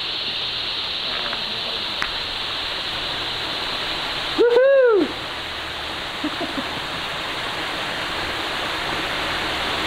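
Creek water running steadily over rocks in a small cascade, a constant rush. About halfway through, one short loud hoot rises and falls in pitch.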